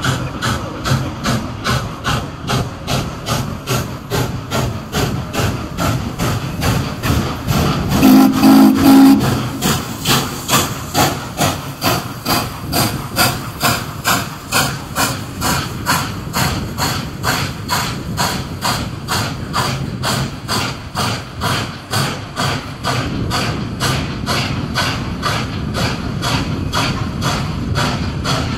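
Norfolk & Western J-class 4-8-4 steam locomotive 611 working in reverse to push its passenger train, its exhaust beating in an even rhythm of about two chuffs a second. About eight seconds in, its steam whistle blows once for about a second.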